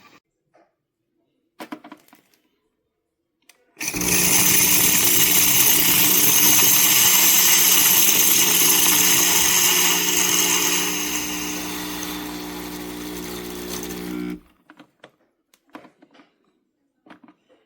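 Espresso machine steam wand hissing, with a steady machine hum underneath, for about ten seconds before shutting off abruptly. The hiss grows quieter and duller partway through.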